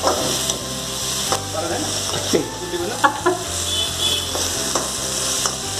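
Onion and ginger-garlic masala sizzling in hot oil in a kadai while a metal ladle stirs it, with several sharp clinks of the ladle against the pan.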